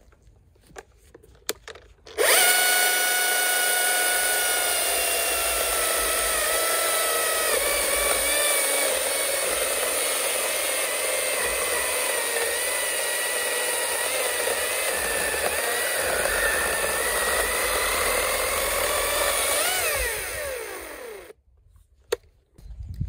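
Husqvarna T540iXP battery chainsaw on a 4.2 Ah battery, eco mode off for full power, cutting through a dense, seasoned holm oak log. A loud motor-and-chain whine starts suddenly about two seconds in and drops in pitch as the chain loads up in the cut. It runs for about eighteen seconds, rises briefly near the end, then winds down and stops.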